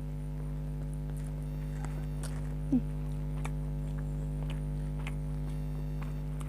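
Steady electrical hum, with faint scattered clicks of chewing and mouth sounds from eating; one short, louder sound with a falling pitch near the middle.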